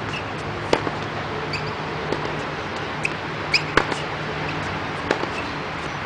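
Tennis ball struck by a racket and bouncing on a hard court: a few sharp pops spaced a second or more apart, two close together around the middle. Short high squeaks come between the hits.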